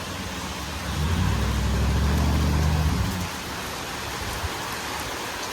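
Heavy squall-line rain falling steadily, with a louder low rumble from about one to three seconds in.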